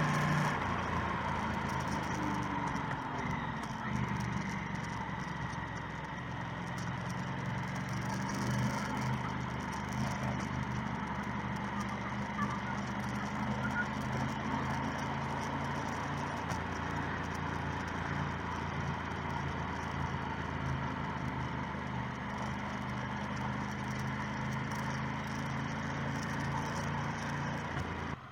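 Motorcycle engine running on the move, with wind and road noise. Its pitch falls over the first few seconds as the bike slows, then stays steady at a cruise.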